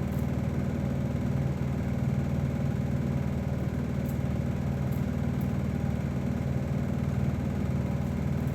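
A steady, low motor hum with a pitched drone, unchanging throughout.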